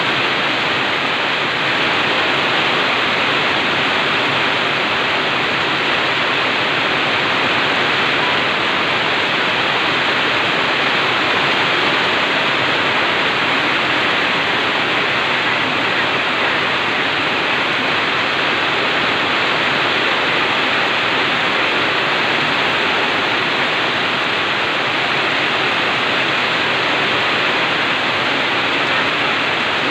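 Heavy rain falling steadily: a loud, even hiss with no breaks.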